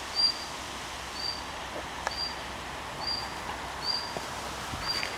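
A small bird repeating one short high call about once a second, six times, over steady outdoor background noise with a few faint rustles.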